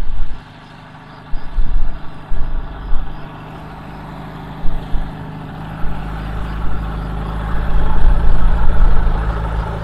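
Kitfox bush plane's engine and propeller running as it taxis across grass toward the microphone, growing louder as it nears. In the first few seconds, gusts of wind thump on the microphone.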